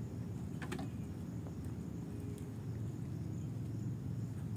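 Outdoor ambience with a steady high insect drone over a low rumble, and a couple of faint clicks about two-thirds of a second in.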